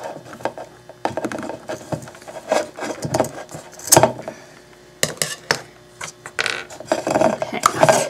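Scissors cutting through rough rope: a run of irregular snips and scraping clicks, the sharpest about four seconds in.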